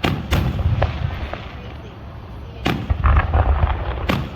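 Fireworks shells bursting overhead: a loud boom at the start and another close behind it, a few small pops, then a big boom past the middle followed by crackling, and another boom near the end.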